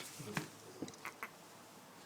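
A handful of short, sharp clicks, two of them close together about a second in, with a faint brief low sound near the start.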